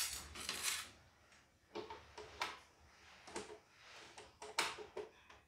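Handling and disassembly noise on a wooden workbench: a brief scraping rustle at the start, then scattered clicks and knocks as screws are undone with a screwdriver and parts of a CNY embroidery machine's plastic housing are moved.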